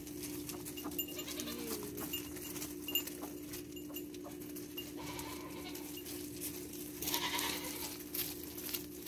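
Goats bleating a few times, the loudest about seven seconds in. Light clicks of small hooves on gravel and a steady low hum run underneath.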